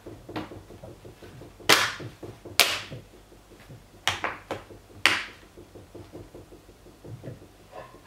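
The plastic bottom cover of a Lenovo ThinkPad L450 laptop being pressed home by hand, its clips snapping into place: four sharp clicks about a second apart, among lighter taps.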